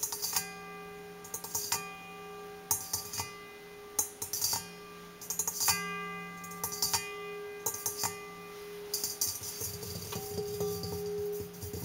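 Stainless steel mixing bowl of a KitchenAid stand mixer tapped with the fingers: groups of quick metallic taps about once a second, each leaving the bowl ringing with several clear tones. Near the end, hands grip and handle the bowl, giving a denser scraping rustle.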